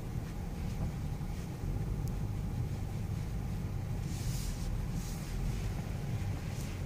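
Steady low rumble of a BMW X6 heard from inside its cabin, driving slowly under light, constant throttle over a muddy, rutted off-road track.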